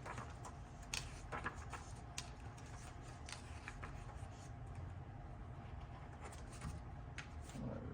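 Trading cards and their packaging being handled: scattered soft clicks, taps and rustles over a faint steady room hum.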